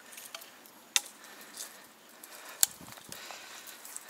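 Leaves and grass rustling as someone pushes through streamside brush, with scattered light clicks of gear being handled and two sharp snaps, about a second in and about two and a half seconds in.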